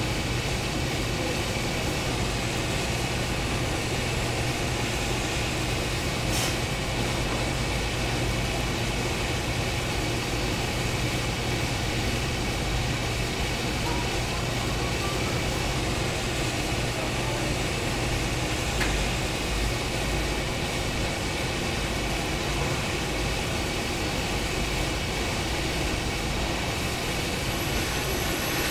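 Steady drone of running factory machinery: a constant hum with several steady tones over broad noise, and one sharp click about six seconds in.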